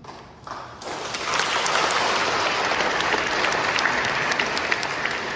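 Congregation applauding, many hands clapping in a large reverberant church, starting about a second in and rising quickly to a steady level.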